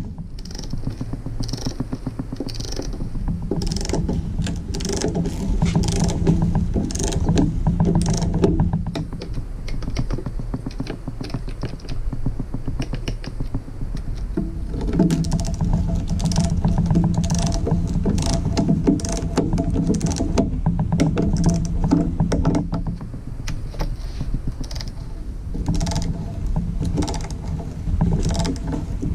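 A socket ratchet clicks rapidly as it runs the oil pan bolts down against the new gasket. The clicking comes in two long spells, with a sparser stretch between them.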